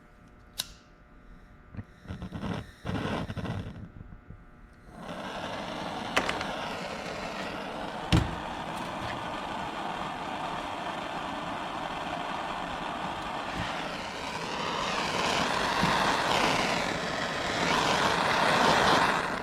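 A handheld gas torch's flame hissing steadily while heating a battery lug and wire for soldering. It catches suddenly about five seconds in, after a few clicks, and grows louder near the end, with a couple of sharp clicks along the way.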